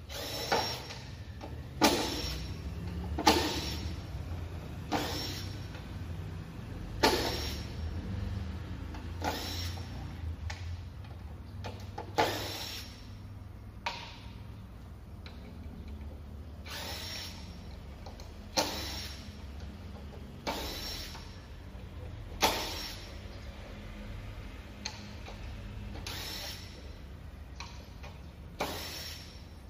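Makita DTD149 (XDT04) 18V cordless impact driver driving screws into wooden boards, in a run of short bursts each with a high whine, one every one to two seconds.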